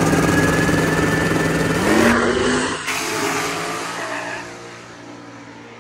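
Small-tire drag car at full throttle, its engine note climbing about two seconds in with a high whine rising slowly above it, then fading away as the car pulls off down the track.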